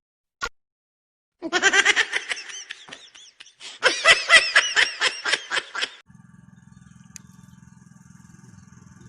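Two bursts of loud laughter in quick rhythmic ha-ha pulses, preceded by a single short click.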